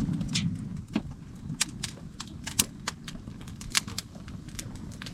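Wood campfire crackling, with irregular sharp pops and snaps over a low rumble that is loudest in the first second.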